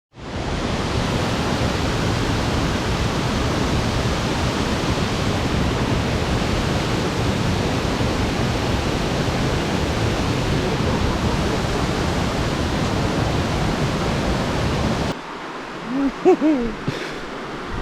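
Waterfall close by: a steady, loud rush of falling water. About 15 seconds in it gives way to a quieter rush, with a short wavering vocal sound.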